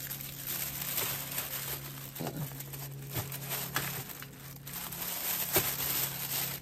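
Plastic packaging crinkling and rustling as it is handled, with scattered sharper crackles, over a low steady hum.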